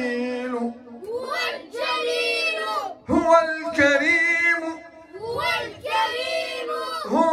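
A class of children singing together in drawn-out, held phrases, about four of them, with short breaks between.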